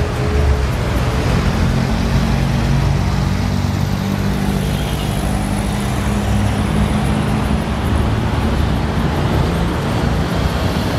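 City street traffic: car and van engines running and passing at an intersection, a steady low rumble with no break.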